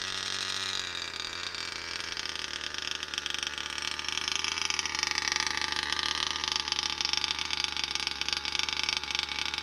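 Small 26 cc two-stroke petrol engine of a 1/8-scale RC car running, its pitch sagging and rising again as the revs change.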